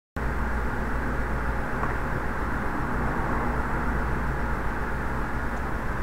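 Steady dull background rush with a low hum underneath, unchanging throughout, with no distinct clicks from the relays.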